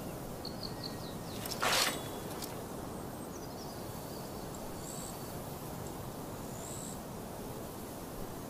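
A single short swish of a sword blade cutting through the air, about two seconds in, over a steady outdoor background hiss with a few faint bird chirps.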